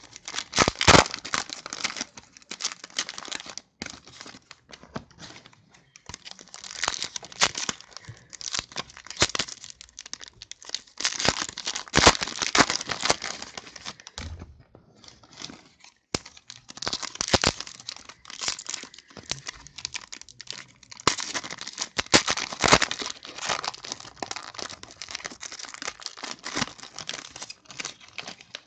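Plastic trading-card pack wrapper being torn open and crinkled, with the cards handled, in irregular bursts of crackling with brief pauses.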